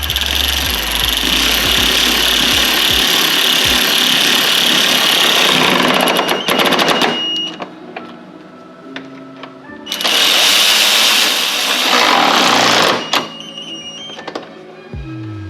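Power driver running in two long bursts, about seven seconds and then about three seconds, driving the T30 Torx screws that hold the bumper up top.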